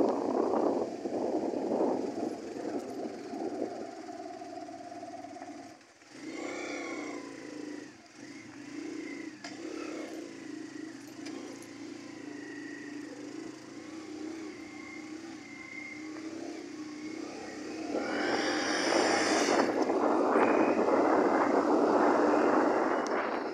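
Motorcycle running along a dirt road, its engine drone mixed with road and wind noise. The sound dips briefly about six seconds in and grows markedly louder and hissier for the last five seconds.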